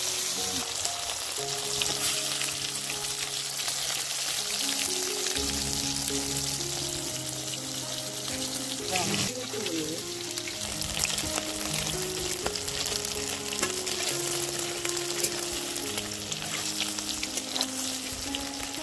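Egg pakoda pieces sizzling steadily in hot oil in an iron kadai, with a metal spatula scraping and tapping the pan now and then. Soft background music with held notes runs underneath.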